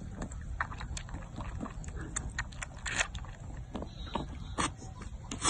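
Baby goat sucking at a milk bottle: quick, irregular wet smacks and slurps from its mouth on the teat, a few louder than the rest, over a low steady rumble.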